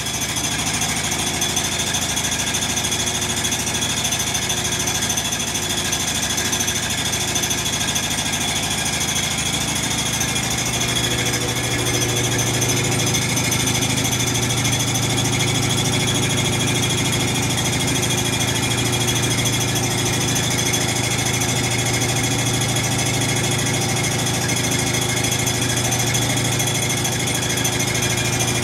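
Samsung WA45H7000AW top-load washing machine on its spin cycle, making a fast, continuous mechanical rattle with a low hum that grows stronger about ten seconds in. The odd noise persists although the machine is level and the load balanced, and no error code shows.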